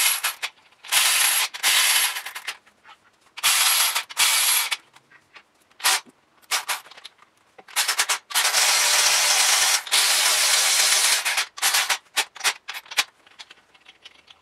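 Cordless electric ratchet running in a series of short bursts, snugging down engine main bearing cap bolts lightly before final torquing. The longest run, about three seconds, comes just past the middle, followed by several quick blips near the end.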